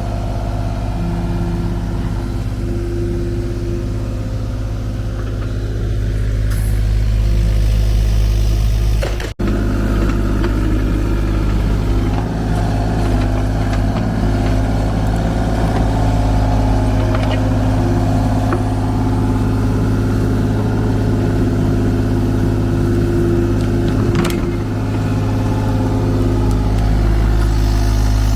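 Mini excavator's diesel engine running steadily under load, with a sharp knock about 24 seconds in and a brief break about 9 seconds in.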